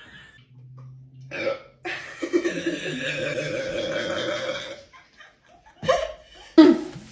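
A person burping after gulping down a large carbonated soda: one long drawn-out burp of about three seconds, with a short one before it and two short loud sounds near the end.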